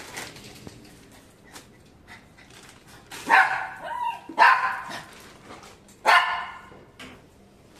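Pomeranian dog barking three times, sharp barks spread over about three seconds.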